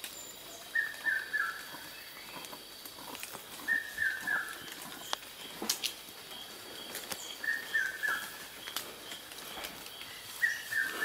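A forest bird repeating a short phrase of three quick falling notes, four times about every three seconds, over a steady high pulsing insect trill.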